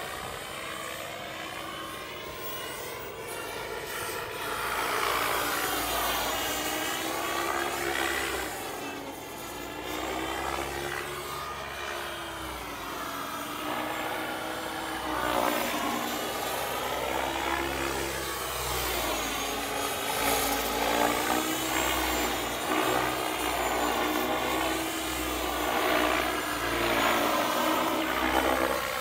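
Turbine-powered RAW 700 radio-controlled helicopter in flight: its turbine whine and rotor noise run continuously, sliding up and down in pitch and swelling in loudness as it swoops and passes overhead.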